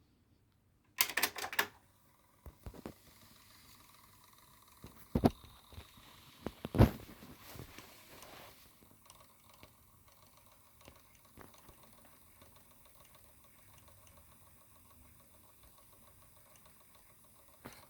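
Sony TC-WE435 dual cassette deck's tape mechanism: a series of sharp mechanical clicks and clunks in the first seven seconds, then the transport running faintly and steadily with a fine ticking texture.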